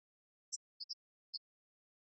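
Near silence, broken about five times by very short, faint high-pitched ticks.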